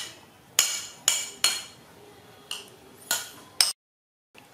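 Metal spoon clinking and scraping against a white ceramic bowl as food is scooped, about seven sharp ringing clinks at uneven intervals.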